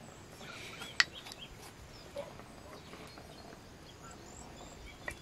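A small wooden spoon clicks sharply once against a ceramic spice pot about a second in as spice is scooped out, followed by a few faint light taps. Faint bird chirps sound in the background.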